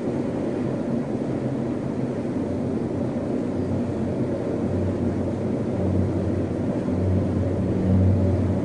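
Wind from a dust devil buffeting the microphone: a steady low rumble, with a low hum growing stronger in the last few seconds.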